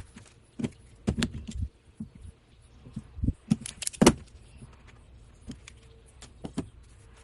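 Irregular light clicks, taps and small metallic clatters of hands handling tools and parts, with louder knocks about a second in and just after four seconds in.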